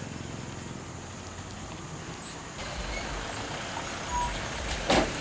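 Heavy vehicle, likely a bus, running over a rough road with a steady engine rumble and low thuds, then one sharp bang near the end.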